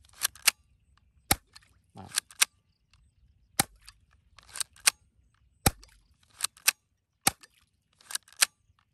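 Gas-powered 1911-style BB pistol firing repeatedly: about a dozen sharp cracks, roughly one every half to one second, several coming in quick pairs.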